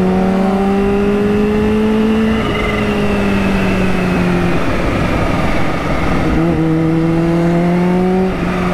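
Kawasaki Ninja H2's supercharged inline-four engine running under way, over a constant rush of wind and road noise. The engine note climbs slowly and steps down about two and a half seconds in. It falls away under the wind for a couple of seconds in the middle, then comes back, climbs again, and steps down near the end.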